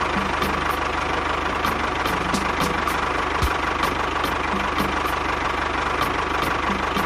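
Small engine running steadily at idle, with a fast chugging beat and a light tick repeating two or three times a second.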